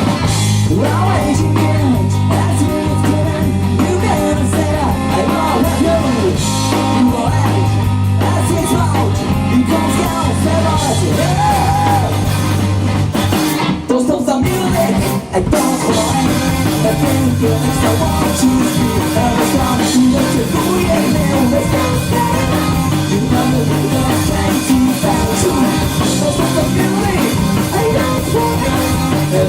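Live rock band playing loudly, with a steady bass line and a full band sound, briefly dropping out for a moment about halfway through before coming back in.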